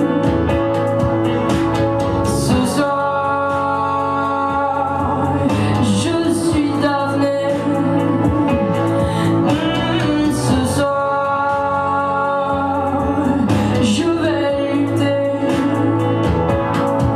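A woman singing live into a microphone, holding long notes in phrases, over strummed electric guitar.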